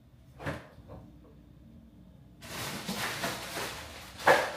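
Refrigerator door being pulled open, followed by a couple of seconds of rustling and rattling from inside and a sharp knock near the end, the loudest sound. A soft knock comes about half a second in.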